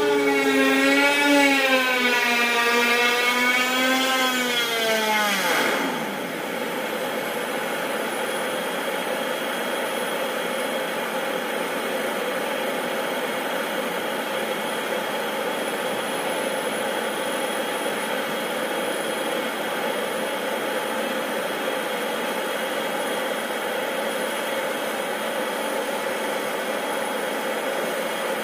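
Air Tractor agricultural plane's Pratt & Whitney PT6A turboprop taxiing in: a wavering, siren-like propeller tone drops steeply in pitch about five seconds in. It then settles into a steady idle, a rushing hiss with a thin turbine whine.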